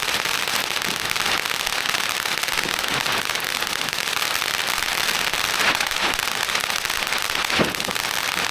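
Fireworks crackling in a dense, continuous rattle of small pops, with two louder pops in the second half.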